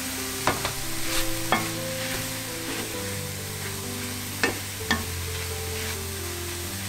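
Wooden spatula stirring and scraping cauliflower rice with mushrooms and spinach as it fries in a stainless steel sauté pan, with a few sharp knocks of the spatula against the pan, a cluster between about half a second and a second and a half in and two more around four and a half to five seconds.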